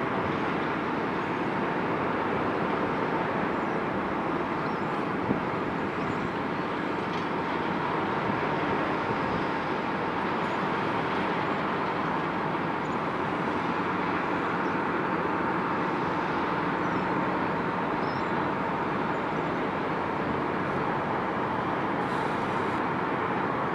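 Bucket wheel excavator working: a steady, even machinery drone with a faint constant whine in it.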